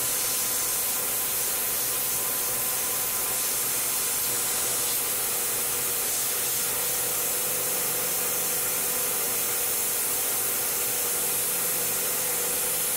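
Tormach 1100M CNC mill cutting ratchet teeth in steel with a 1/16-inch four-flute carbide end mill, its spindle at 7,500 RPM giving a steady, unchanging tone. Over it runs an even spray hiss from the coolant nozzle aimed at the cutter.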